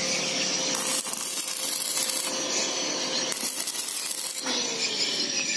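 Electric stick (arc) welder crackling steadily as a joint on a motorcycle frame is welded, repairing a part that had broken.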